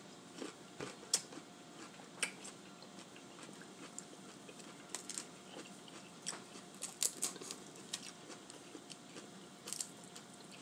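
Close-up eating sounds: a bite and chewing of cucumber, then boiled crawfish shells being cracked and peeled by hand, heard as scattered sharp crackles and clicks.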